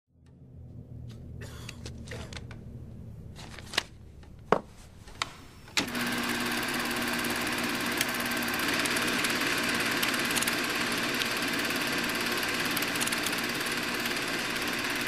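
A few sharp clicks, then a film projector starts up about six seconds in and runs with a steady, fast mechanical clatter.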